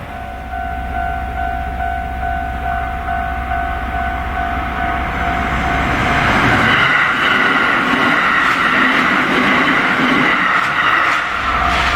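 Japanese railway level-crossing warning bell ringing in rapid electronic pulses. About six seconds in, a Kintetsu Osaka Line train passes over the crossing and its wheel-on-rail noise drowns the bell. The bell is heard again near the end.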